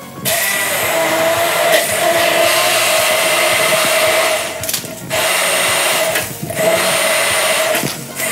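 Electric kitchen blender motor running in pulses: a steady whir with a held hum, stopping briefly about four and a half seconds in and again about six seconds in.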